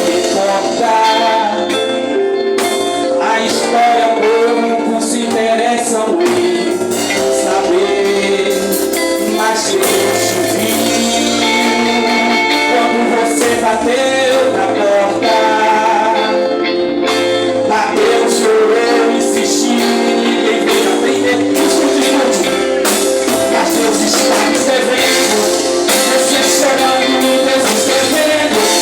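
Live Christian worship song: singing over a backing band, continuing throughout.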